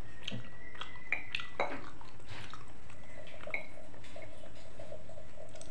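Eating by hand: fingers picking through pieces of cow's-foot gulai (kikil) in a china bowl, with scattered small wet clicks and smacks.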